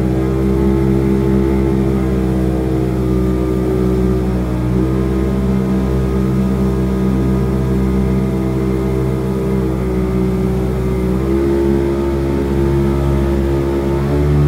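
Jet boat's engine running steadily under way, its pitch shifting slightly twice.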